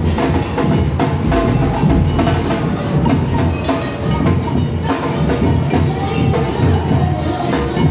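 Street drumming band playing a fast, loud percussion rhythm on snare drums and large bass drums, a dense run of sharp strokes over a deep beat.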